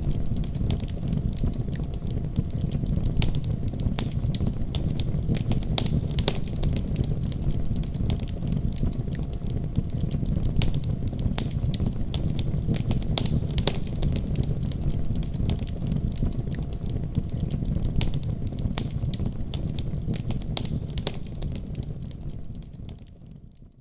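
Wood fire burning in a fireplace: a steady low rumble of flames with frequent sharp crackles and pops. The sound fades out near the end.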